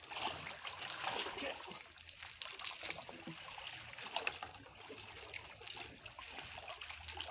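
Pond water splashing and trickling around a harvesting net as it is dragged through a shallow catfish pond, with many small irregular splashes.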